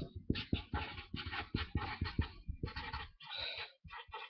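Irregular scratching and rustling of paper close to the microphone, in quick uneven strokes.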